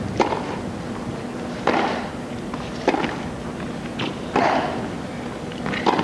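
Tennis rally: a racket strikes the ball about every second and a half, five hits in all, over a steady background of crowd noise.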